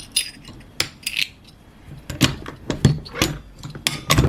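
Metal pin-back buttons clicking and clinking against each other as they are handled and sorted: a string of sharp, irregular clicks, some with a dull knock underneath.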